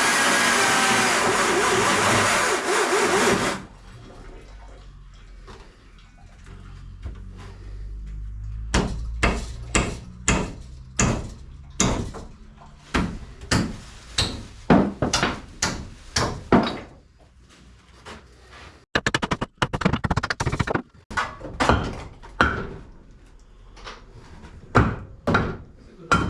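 A power tool runs loudly and cuts off about three and a half seconds in. After a few quieter seconds comes a long, irregular series of sharp knocks and bangs on timber, typical of demolition work: hammering and prying boards and framing loose.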